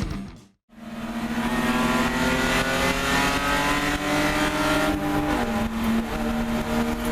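Car engine under load, its revs climbing steadily for about four seconds, then dropping in pitch at a shift about five seconds in and pulling on at the lower pitch.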